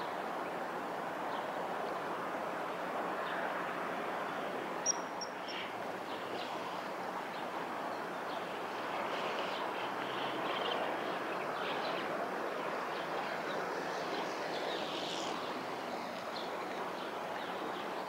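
Steady outdoor background noise with faint, scattered high bird chirps, and one short, sharper high call about five seconds in.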